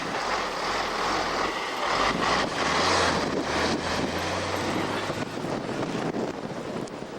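Car driving along a snow-covered road: a low engine drone under a loud rushing hiss with a few knocks. It swells about three seconds in and eases off near the end.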